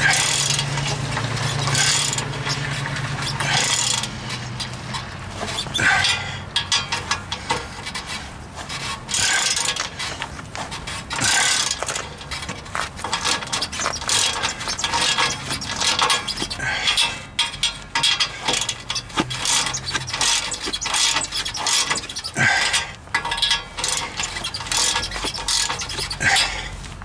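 Socket ratchet clicking in repeated short runs of strokes, with brief pauses between them, as it tightens the nut on an exhaust pipe clamp.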